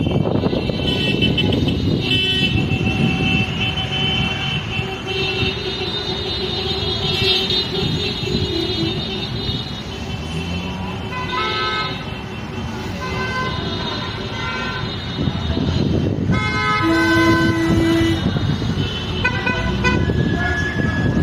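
Many vehicle horns honking at once, long overlapping blasts at several different pitches that start and stop throughout, over a steady rumble of traffic.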